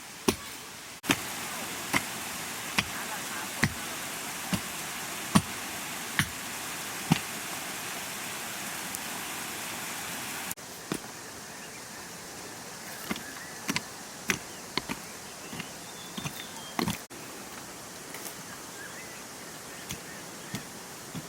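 A series of sharp knocks, about one a second, over a steady background hiss, then thinning out into scattered knocks.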